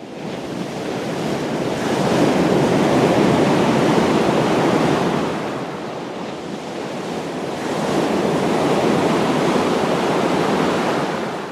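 Ocean surf washing in, the rush of water swelling and ebbing twice.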